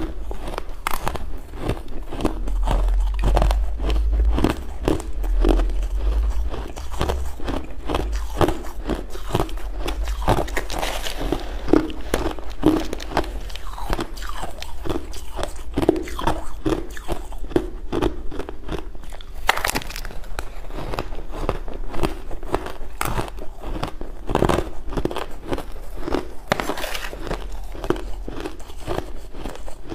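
Crushed and shaved ice being chewed: a dense, continuous run of sharp crunches and crackles as mouthfuls of hard frozen ice are bitten and ground.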